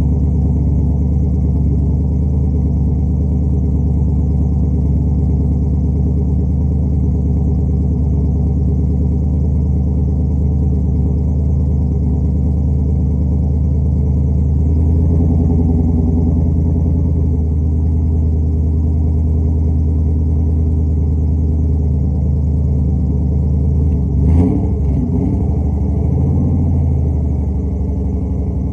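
6.0-litre LS V8 idling steadily after a cold start, its idle speed lifting slightly about halfway through. Near the end there is one brief throttle blip.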